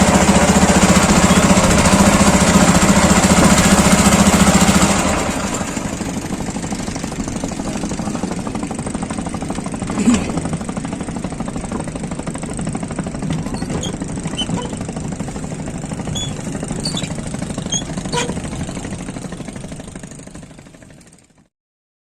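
A small engine running steadily, loud for about the first five seconds, then quieter, and fading away to silence just before the end.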